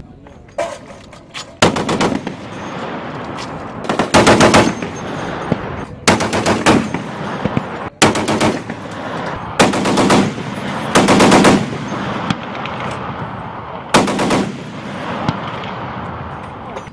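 M2 .50 calibre heavy machine gun firing a series of short bursts, about seven, each lasting under a second, with the reports echoing between bursts.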